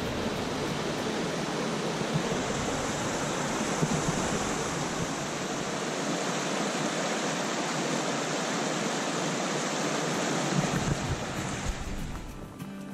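Rocky mountain stream rushing over boulders and small cascades, a steady full rush of water that drops away near the end.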